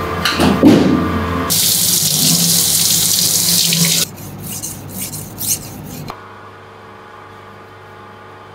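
A few knocks at the start, then a water tap running hard for about two and a half seconds and cut off abruptly. After that come several fainter strokes of a butcher's knife on a wet sharpening stone.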